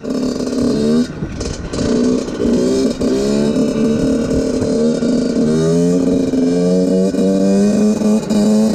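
Yamaha YZ85 two-stroke dirt bike engine revving under way, its pitch climbing and dropping several times, then holding steadier near the end.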